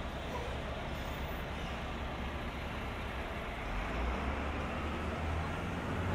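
City street traffic: a steady hum of passing vehicles, with a deeper engine rumble growing louder from about halfway through.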